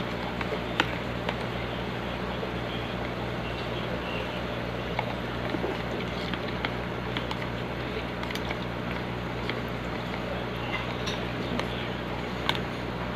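White plastic spoon stirring decapsulated brine shrimp eggs in water in a clear plastic tub, knocking lightly against the plastic in scattered small clicks, over a steady low hum and hiss.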